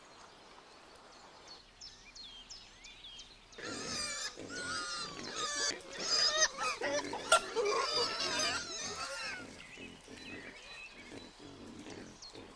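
Wild boars squealing in a loud, dense bout of high, bending calls from about four seconds in, dying down after about nine seconds. Small birds chirp faintly just before it.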